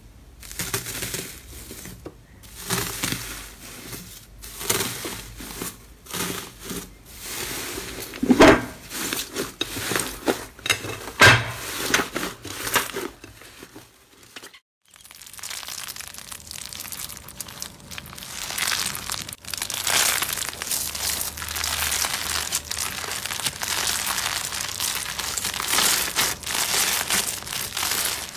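Hands pressing and kneading slime covered in gold leaf, the foil crinkling and tearing in uneven bursts with a few sharper crackles. After a short break about halfway, a crunchy slime full of small beads is squeezed, giving a dense, steady crackling.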